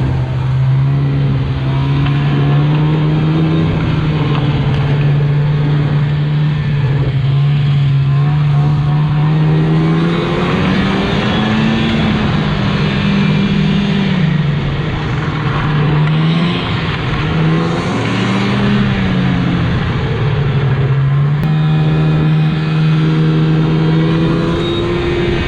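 Plow truck's engine running steadily, its pitch rising and falling a few times with engine speed as the truck drives and works through the snow.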